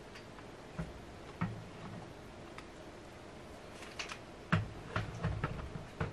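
A cat grooming, licking its paw and foreleg: short, wet clicks of the tongue, a few scattered at first, then a quicker run in the second half.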